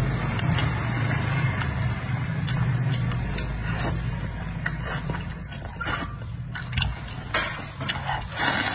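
Slurping and chewing of chili-oil mipi rice noodles drawn in with chopsticks: short wet smacks that come more often in the second half, and one loud, longer slurp near the end. A steady low hum runs underneath for most of the time and drops away about seven seconds in.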